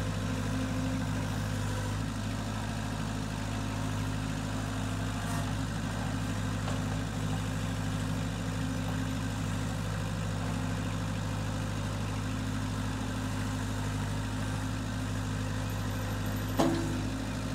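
Compact tractor engine running steadily as its front-end loader pushes against a tree stump, with one sharp clank near the end.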